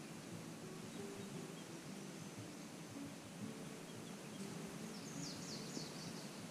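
Faint outdoor ambience with birds; about five seconds in, a bird gives a quick run of short, high chirps.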